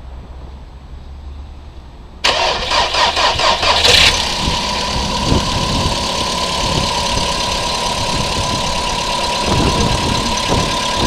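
Volkswagen Polo Sedan's 1.6-litre four-cylinder petrol engine cranked by the starter for about two seconds, catching and settling into a steady idle with a constant whine. This is the start-up the owner is recording because of a knock he says it makes when starting.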